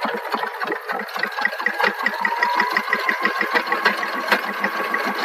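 Jaguar JN-100 electric sewing machine running and stitching, the needle going at about eight strokes a second over a steady motor whine.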